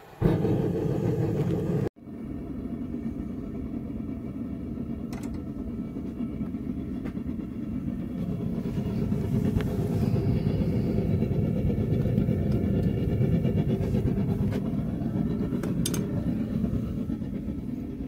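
Gas forge burner lit with a hand-held propane torch: it catches with a sudden loud rush, then runs with a steady low rumbling roar that grows a little louder partway through.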